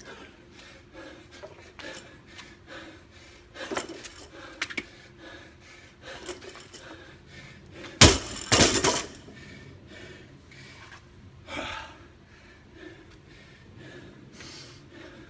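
Loaded barbell dropped onto a concrete driveway about eight seconds in: a loud crash of the weight plates hitting the ground, then a second hit as it bounces.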